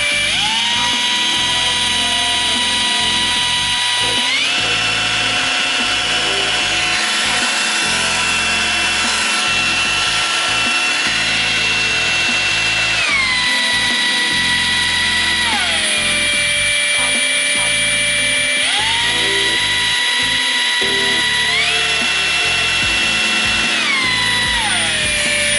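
Worx WU808 20 V brushless cordless angle grinder running with no load, a steady whine. Its pitch steps up twice, down twice, up twice and down twice again as it is switched through its three speed settings.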